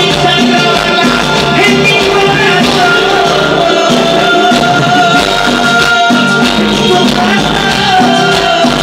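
Live Latin band music at a concert, heard loud from the crowd, with a steady beat, keyboards and a singer on the microphone.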